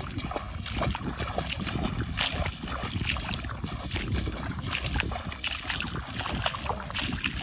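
A person running through shallow pond water, feet splashing with each step.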